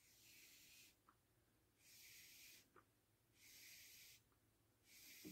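Faint, repeated hiss of cotton yarn rubbing as a long tail is drawn through the last crochet loop in four even pulls, about one every second and a half, with a few light ticks between.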